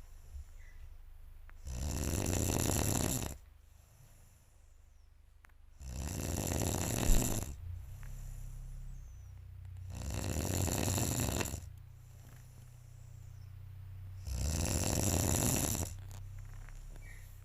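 Heavy, loud snoring: four long snores about four seconds apart, each lasting about a second and a half, with quieter breathing between them.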